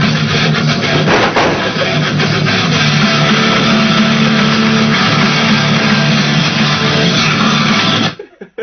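Loud rock music with electric guitar, cutting off suddenly near the end.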